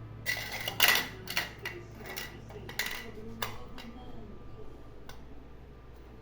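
Hard objects clinking and clattering: a quick run of sharp knocks with a short ringing tone during the first three and a half seconds, then it goes quiet.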